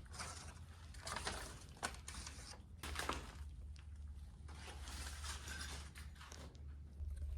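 Irregular scrapes and crunches about a second apart, typical of footsteps and movement over debris, over a steady low hum.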